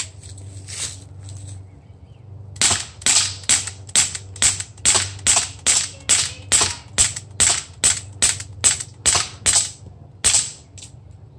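Walther CP99 Compact CO2 blowback BB pistol fired in quick succession: about twenty shots at roughly three a second, then a single last shot after a short pause near the end.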